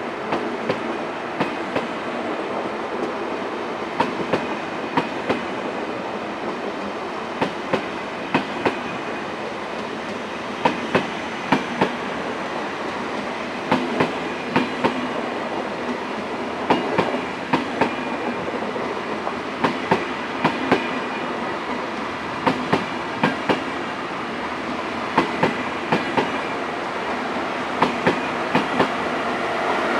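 ICE high-speed train rolling slowly through the station. Its wheels click in quick pairs and groups over rail joints and points, over a steady rumble of the passing carriages.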